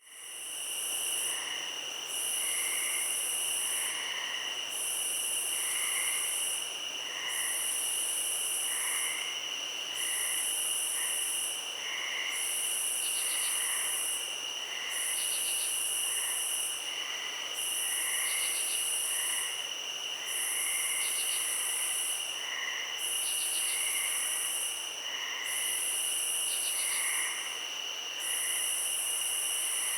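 Night insect chorus: a high buzzing call repeats in long pulses about every two and a half seconds over steady high-pitched cricket trills, with short lower chirps scattered throughout. From about halfway, brief rapid trills join in.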